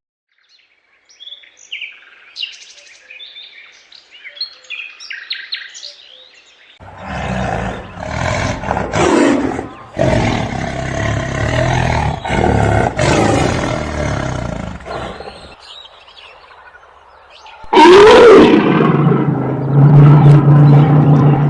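A run of animal calls: faint high chirping of small birds for the first few seconds, then several seconds of loud, rough animal calls. Near the end comes a loud call that rises and falls in pitch and then settles into a low, steady drone.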